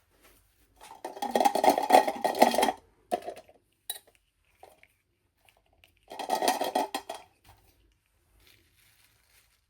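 Small plastic toy pieces and packaging being handled in an unboxing: two bursts of rattling clatter, the first about two seconds long and the second about a second, with a few light clicks between them.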